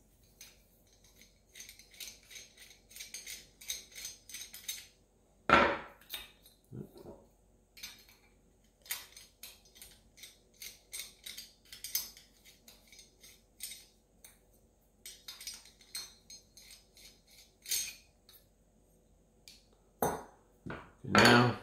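Screwdriver working the small cylinder-head screws out of a Novarossi Bonito nitro engine: a run of light metallic ticks and clinks, with a sharper metal knock about five seconds in and a few more near the end as the head comes off and the tool is handled.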